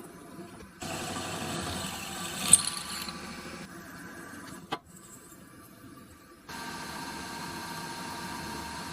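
Machine tool running while cutting metal, heard in several short joined clips whose level jumps abruptly, with a sharp metallic click about two and a half seconds in and a shorter click near five seconds.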